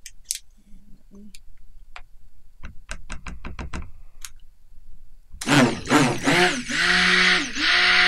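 Stick blender mixing lye water into soap oils in a plastic jug: its motor is switched on and off in short bursts, whining up in pitch at each start and down at each stop, then runs steadily from about two-thirds of the way in. Before it starts, a run of light clicks and knocks.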